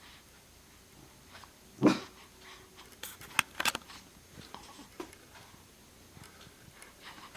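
A pet hiccuping: one short, sharp hiccup about two seconds in, followed a second later by a quick run of a few sharp clicks.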